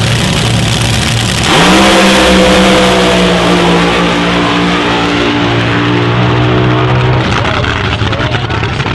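A pair of front-engine Top Fuel dragsters with supercharged, nitromethane-burning V8s rumbling at the starting line, then launching about a second and a half in with a sudden, very loud blast that climbs in pitch and holds steady as they run down the track. The engine sound drops away about seven seconds in, leaving a fainter noisy tail.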